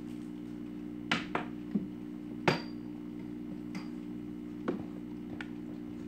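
Hard objects knocking and clinking as equipment is handled: about seven sharp knocks, the loudest about two and a half seconds in with a brief ringing ping. A steady low electrical hum runs underneath.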